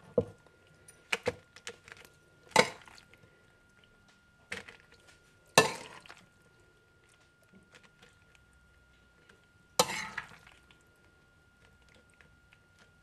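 A serving utensil clinking and knocking against a bowl as creamy sauced pasta shells are scooped out onto a dehydrator sheet. There are a handful of short knocks, the loudest a little over five seconds in and again near ten seconds.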